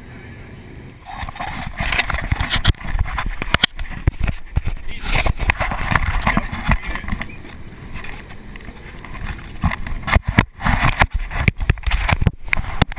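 Wind buffeting and irregular knocks from a GoPro camera being handled and moved around the deck of a boat at sea, over a low rumble.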